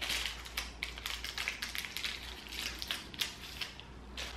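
Snack packaging crinkling and rustling in the hands as a giant Pocky stick is handled: a run of quick, irregular small crackles and ticks.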